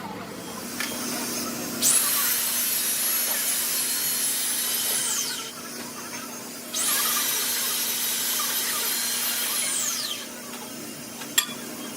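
A handheld high-speed power tool run twice for about three and a half seconds each time, a steady high whine that winds down in pitch when released, followed by a sharp click near the end.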